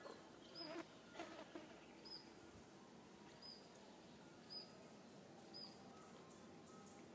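Near silence: faint outdoor ambience with a short, high chirp repeating about once a second and a few soft rustles in the first two seconds.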